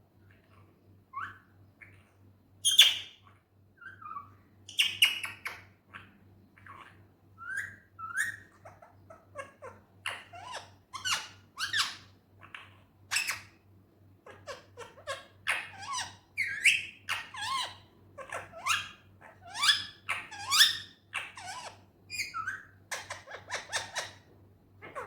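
Indian ringneck parakeet chattering in a quick run of short chirps, squeaks and squawks, some sliding up or down in pitch, the loudest a sharp squawk about three seconds in.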